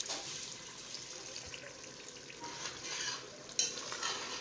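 A pot of food bubbling and sizzling on the stove, a steady hiss, with one short sharp sound about three and a half seconds in.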